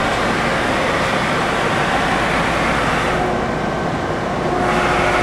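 Okuma & Howa Millac 5VA CNC vertical machining center running through its warm-up program: a steady mechanical running noise. A whine drops away for most of this stretch and comes back near the end.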